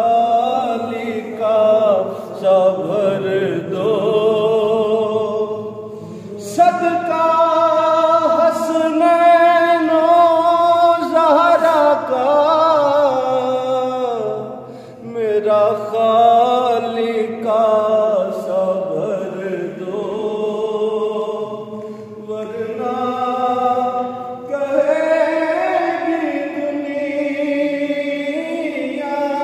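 A man's unaccompanied voice singing an Urdu devotional kalam (a manqabat in praise of Ghaus-e-Azam). He draws out long held notes with ornamented turns of pitch and takes a short breath about halfway through.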